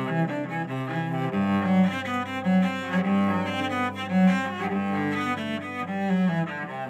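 Cello music: bowed notes moving over a low held bass note that enters about a second in.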